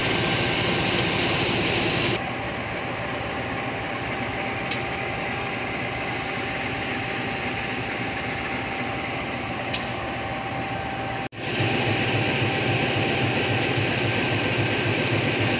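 Steady mechanical hum of a diesel-hauled passenger train standing at a station, with a few faint clicks. The sound changes abruptly about two seconds in and cuts out for an instant about eleven seconds in.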